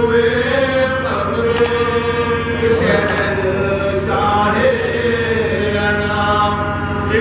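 Soz-khwani: a group of men chanting an Urdu mourning elegy (soz) together without instruments, in long held, wavering notes.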